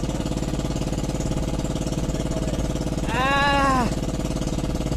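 A boat's engine running steadily with a fast, even knocking beat. About three seconds in, a short voice call sounds over it.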